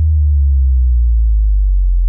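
A deep, loud electronic bass tone that slides slowly downward in pitch, like an 808-style bass-drop sound effect.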